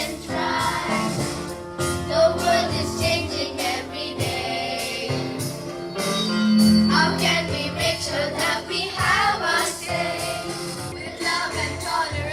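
A song with singing voices over instrumental backing and light percussion.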